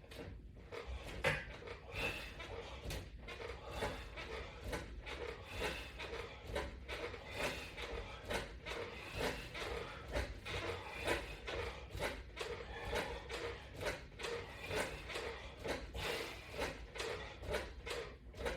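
Repeated bench pull-down crunches against resistance bands: a steady rhythm of short effort and movement sounds, about one and a half a second.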